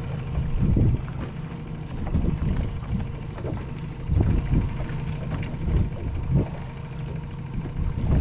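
Boat's outboard motor running steadily at low speed, a constant low hum, with irregular gusts of wind buffeting the microphone.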